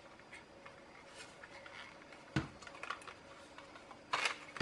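Plastic parts of a Dettol automatic soap dispenser being handled and turned over: a sharp click about halfway through and a short scraping rustle near the end, with a few faint ticks between.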